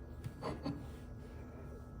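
A few light knocks about half a second in, over a faint steady hum.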